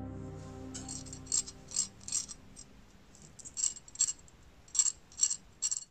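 Crisp crunches of gram-flour-coated fried okra being cut with a serrated knife: about ten short crunches in two groups. Soft piano music fades out during the first couple of seconds.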